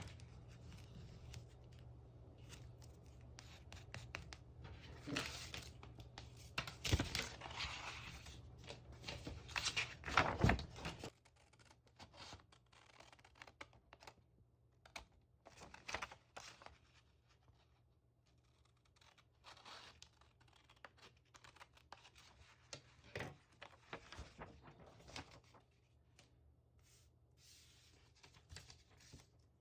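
Paper crafting at a desk: paper tearing and rustling with scattered taps and clicks, busiest in the first third. A low steady hum underneath stops about a third of the way in.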